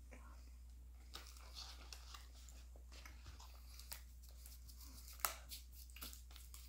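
Faint crackles and small clicks of a flaky puff pastry being chewed and handled, with one sharper click about five seconds in.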